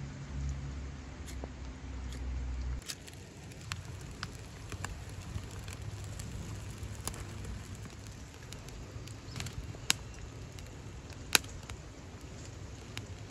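Small fire of dry grass and split kindling crackling under a wire grill, with scattered sharp snaps and two louder pops near the end. For the first three seconds a low steady rumble comes before the crackling.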